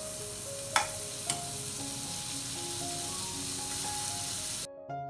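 Food frying in hot fat in a pan, a steady sizzle that cuts off abruptly near the end, with two sharp clicks of a utensil early on. Light background music plays underneath.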